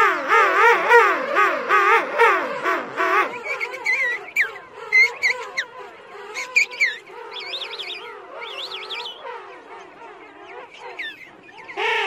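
Crested penguins calling: a loud call with a rapidly quavering pitch for the first three seconds or so, followed by quieter overlapping calls with short higher chirps from other birds.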